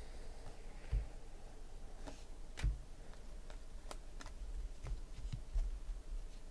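Light, irregular clicks and taps of Panini Prizm basketball cards being flipped through by hand and set down on a stack on a tabletop, about one or two a second.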